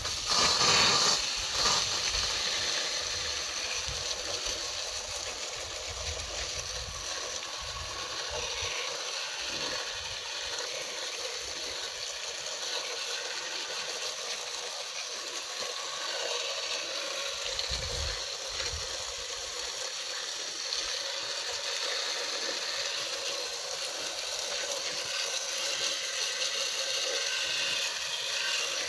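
Garden hose spray nozzle shooting a steady jet of water, hissing and splashing onto an engine's upper intake manifold and the concrete around it as the part is rinsed clean after soaking in parts cleaner.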